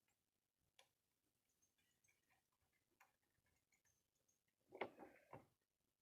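Near silence broken by a few faint clicks, then a short cluster of louder clicks and clinks near the end, as the light bar bracket's bolts and lock nuts are fitted by hand onto the roof gutter rail.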